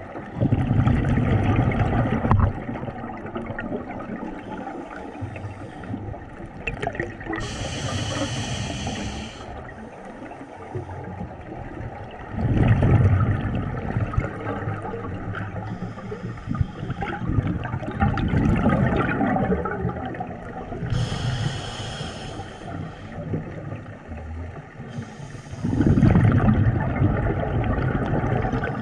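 A scuba diver breathing through a regulator underwater. Bursts of exhaled bubbles rush past three times, near the start, about 12 seconds in and near the end, with hissing inhalations through the regulator between them.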